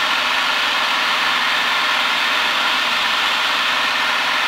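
Single-engine light plane's engine and propeller running steadily in cruise, heard from inside the cabin.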